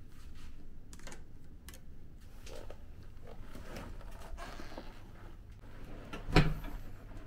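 Scattered light clicks and knocks, with one louder thump about six seconds in, over a steady low hum.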